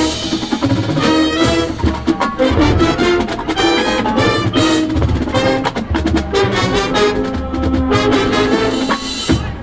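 High school marching band playing loud, brass-led music: trumpets and trombones sound sustained chords over drum strikes and heavy bass drum hits.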